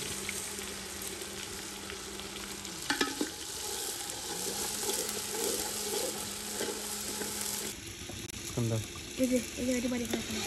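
Rice frying in oil in a metal pot over a wood fire, sizzling steadily, while a metal spoon stirs it and knocks and scrapes against the pot.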